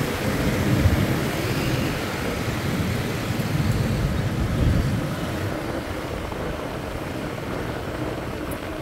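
Street traffic noise, a steady low rumble of passing vehicles that eases off a little after about five seconds.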